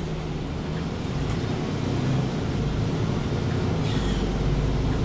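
Diesel engine and ZF Ecolife automatic drivetrain of a MAN Lion's City G articulated city bus running steadily, a little louder from about two seconds in.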